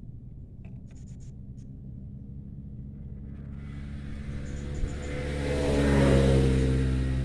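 A motor vehicle approaching and passing, its engine hum growing louder to a peak about six seconds in, then fading.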